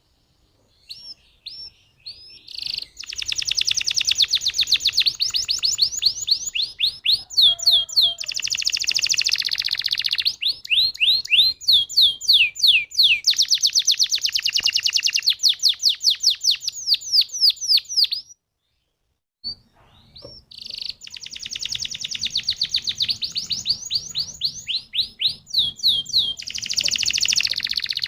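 Domestic canary singing long rolling trills: rapid runs of repeated, sweeping high notes, phrase after phrase. The song breaks off completely for about a second past the middle, then starts again.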